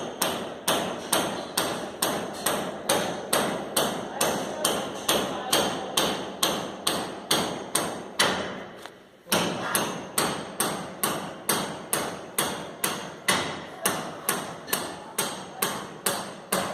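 Steady hammering: evenly spaced sharp blows at about three a second, with a break of about a second just past the middle.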